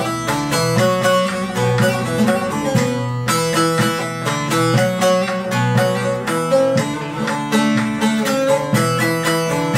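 Bağlama (Turkish long-necked saz) played solo: an unbroken run of quick picked melody notes at a steady tempo.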